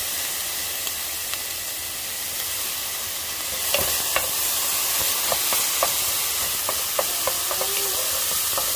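Shallots and garlic sizzling in hot oil, a steady frying hiss. From about four seconds in, a wooden spatula stirs them with a run of sharp taps and scrapes against the pan.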